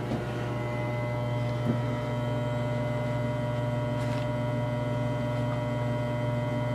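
Electric mixer motor on a small mixing tank running steadily with a constant electrical hum as it stirs the wastewater into a vortex.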